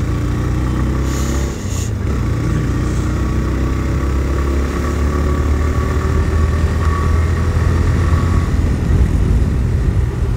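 TVS Raider 125 motorcycle's single-cylinder engine running while riding, heard from the handlebars. There is a brief drop just before two seconds in, and after it the engine note climbs slowly as the bike gathers speed.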